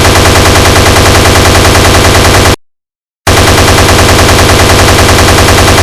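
Sound effect of a Browning M2 .50-calibre heavy machine gun firing in long bursts, about eight shots a second. One burst cuts off about two and a half seconds in, and a second burst starts under a second later.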